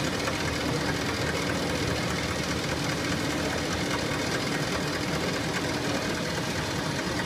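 Four-row biscuit sandwiching machine running at production speed: a steady, rapid mechanical clatter from its conveyors and feed mechanisms.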